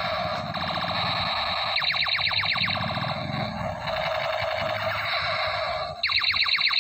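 Toy space gun sounding its electronic firing effect: a continuous buzzing tone broken by fast repeating pitch sweeps, about ten a second, around two seconds in and again near the end.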